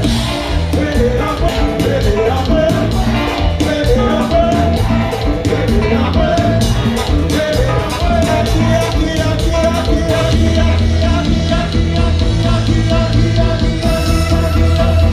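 Live kompa band music: a full band with a steady, heavy bass and a held, wavering melody line on top.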